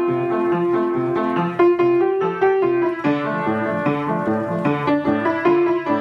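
Grand piano being played: a melody of struck notes over chords, several notes a second, with the notes ringing on.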